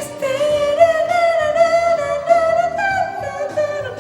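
A singer holding one long sustained note with a slight waver, over backing music, then stepping up to a higher note and back down near the end.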